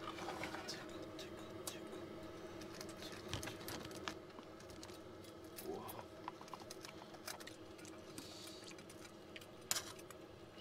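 Small clicks and light clatter of camp cookware being handled: an aluminium mess tin, a food pouch emptied into a small pot and metal tongs, with one sharper click near the end. A steady low hum runs underneath.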